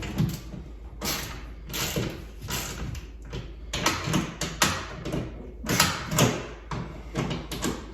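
Screws on a TV wall mount being cranked back in by hand: a run of short, irregular scraping strokes of metal against metal, about one or two a second.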